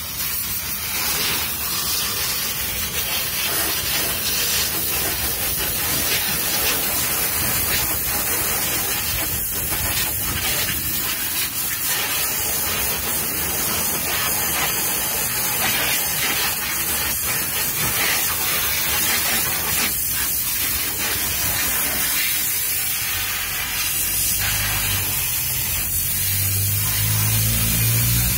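Pressure-washer jet spraying water against a car's side panels and wheel, a steady hiss of spray, with a low hum coming in near the end.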